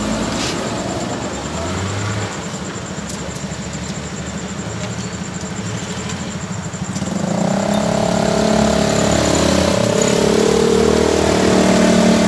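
Street traffic engine noise: a motor vehicle engine runs steadily nearby, and about seven seconds in a louder engine note comes in and the noise swells.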